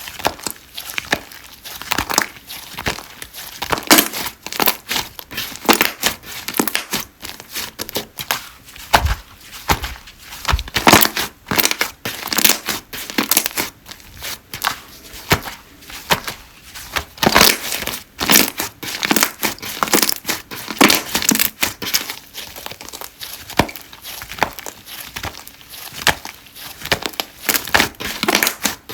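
Slime being squished, stretched and folded by hand, giving a dense, irregular run of crackling and clicking pops.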